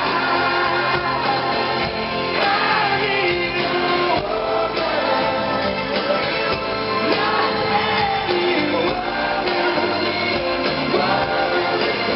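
Live pop-rock band playing with lead vocals singing, heard through an amateur recording in a large arena, with crowd voices mixed in.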